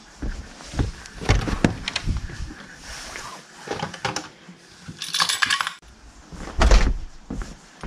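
Clattering handling noises: a string of knocks and clicks, a jangling rattle about five seconds in, and a heavy thump near seven seconds.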